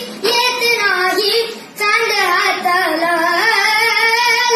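A young child singing solo, holding long notes with a wavering ornamented pitch, with a brief pause for breath about a second and a half in.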